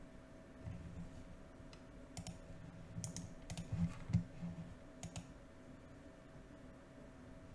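Faint scattered clicks of a computer keyboard and mouse, a few quick clusters between about two and five seconds in, with soft low thumps mixed in.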